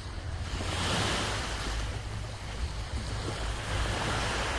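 Sea waves breaking and washing on the shore, swelling about a second in and again near the end, with a steady low wind rumble on the microphone.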